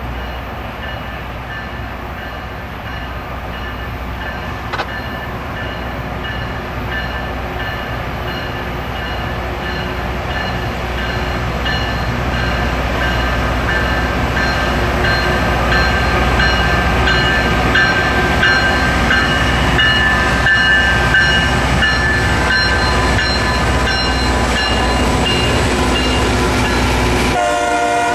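Loram rail grinder train passing while grinding the rail: its engines rumble under a steady metallic whine of the grinding stones on the rail, made up of several high tones. The sound grows louder as the train draws near.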